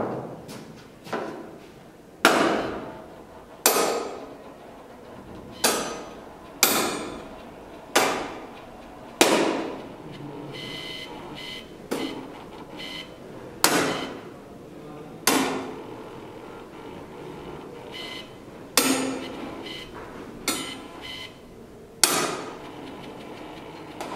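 Metal panels on top of a piezo-sensor sound installation struck again and again with a metal wrench. It gives a series of sharp metallic clanks, each ringing briefly, irregularly spaced about one to two seconds apart.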